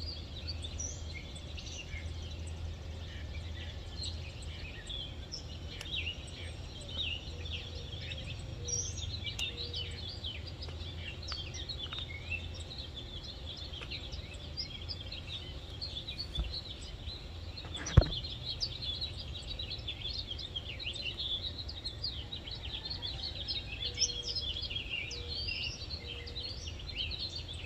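Outdoor garden ambience: many birds chirping over a steady low rumble, with a single sharp click about eighteen seconds in.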